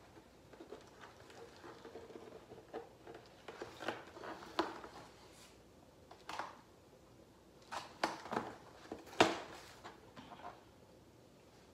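Packaging being handled and opened by hand: scattered rustles, taps and light knocks, the sharpest a knock about nine seconds in.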